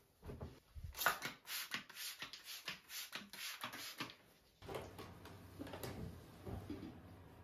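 Soft rustling and brushing of a terry-cloth towel being handled and straightened on a towel rail, a quick irregular run of scuffs. About four and a half seconds in, the background changes and a cloth rubs over a coffee machine more quietly.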